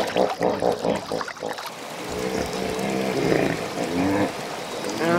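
Hippopotamuses in a river: water splashing at first, then a run of short, low grunting calls from about two seconds in.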